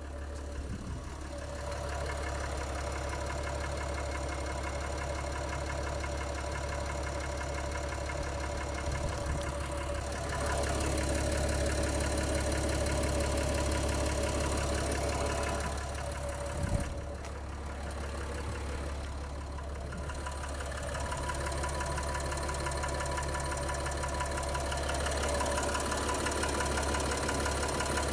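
Nissan Pathfinder's V9X 3.0-litre V6 turbodiesel running cold with a knock, the knocking on a cold engine that the owner is showing. It gets louder about ten seconds in, with a brief sharp sound and a dip around seventeen seconds.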